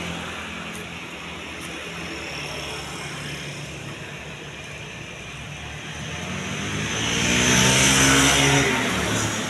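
The Isuzu Panther's diesel engine idling steadily. About seven seconds in, another vehicle passes close by, growing louder to a peak and then fading.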